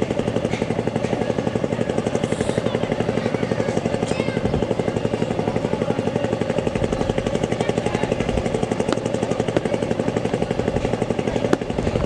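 A small engine running steadily with a rapid, even beat.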